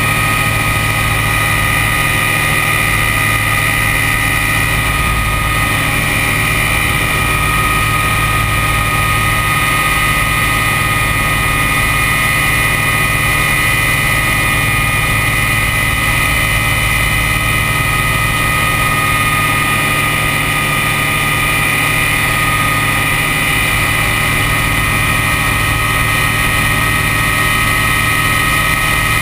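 Ultralight trike's engine and propeller running steadily in cruising flight, a constant drone with a steady higher whine, heard close from the cockpit with wind noise over the microphone.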